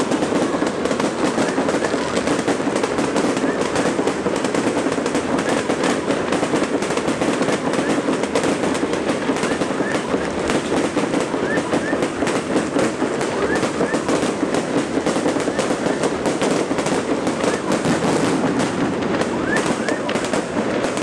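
Fireworks display: a dense, unbroken crackle of bursting shells, with the voices of a crowd of spectators underneath.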